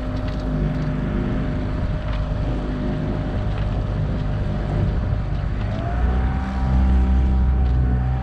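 O'Day 25 sailboat's motor running steadily under way; about six seconds in its pitch rises and it runs louder as it speeds up.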